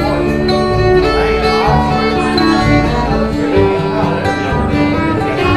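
Instrumental passage of a country song, with fiddle over guitar and no singing.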